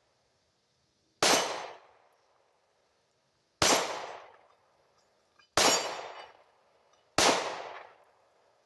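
Glock 26 9mm subcompact pistol firing four single shots, spaced a second and a half to two and a half seconds apart, each with a tail that dies away over about a second.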